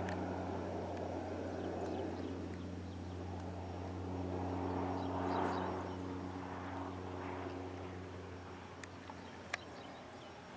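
Agricultural spray plane's piston engine droning at a steady pitch, slowly fading as it draws away. Two sharp clicks near the end.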